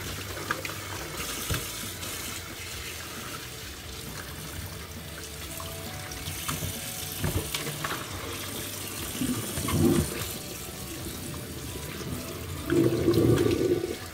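Kitchen tap running over cod fillets being rinsed by hand in a stainless steel sink, to desalt them. The splashing gets louder twice, about ten seconds in and near the end, as the stream hits the fish in a plastic colander.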